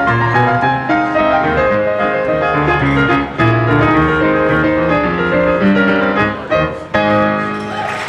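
Piano playing a busy passage of many quick notes and chords over a low bass line, closing on a held chord in the last second.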